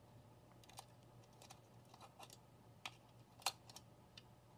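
Faint, irregular small clicks and taps from a plastic quartz wall-clock movement being handled while an AA battery is fitted into its holder. The sharpest click comes about three and a half seconds in.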